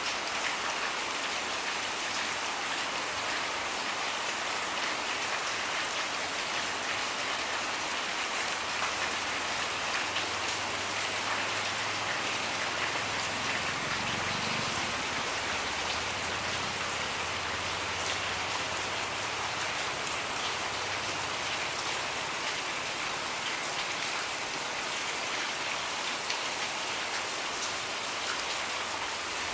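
Steady rain falling, an even hiss of drops on surfaces that does not let up.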